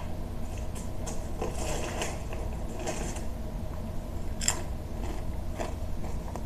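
Steady low hum with faint scattered clicks and rustles from a handheld phone being handled, with a sharper click about four and a half seconds in.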